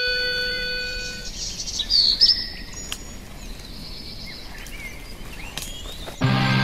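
A held musical chord fades out in the first second, leaving woodland ambience with birds chirping, loudest about two seconds in. Music comes back in loudly near the end.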